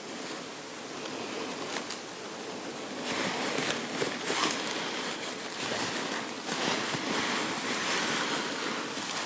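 Fabric rustling and rubbing as a garment is handled: a steady soft hiss that grows a little louder about three seconds in, with a few short scratchy strokes.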